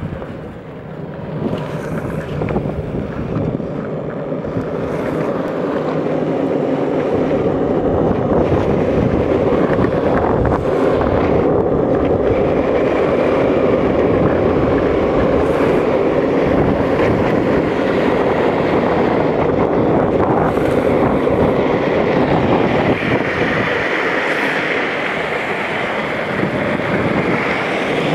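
Longboard urethane wheels rolling fast on asphalt, a steady rumble that builds over the first several seconds as speed picks up, with wind buffeting the microphone.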